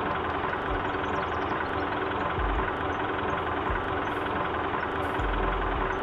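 An engine running steadily at idle, with a few brief low thumps.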